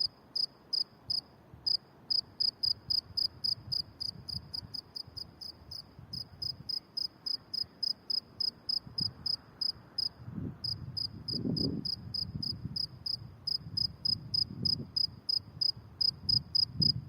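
A cricket chirping steadily at night, short high chirps at about three a second, with a brief pause a little past halfway. A low rumble swells underneath in the second half.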